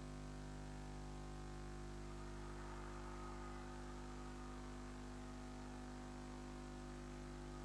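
Faint, steady electrical hum and buzz over hiss, with no distinct event; a little extra noise swells faintly a few seconds in.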